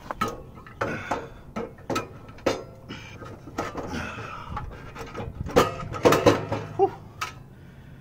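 Metal clunks, knocks and scrapes as a 10 hp Tecumseh HM100 big-block engine is handled and set down into a steel mini bike frame. The loudest knocks come in a cluster a little past the middle.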